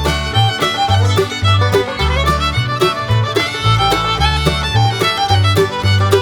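Background music: an upbeat bluegrass-style tune led by fiddle over a plucked bass line with a steady beat.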